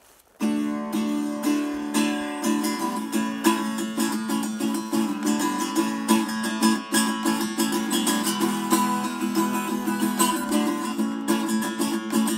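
Small travel-size acoustic guitar strummed in a steady rhythm, a chordal introduction that starts suddenly about half a second in.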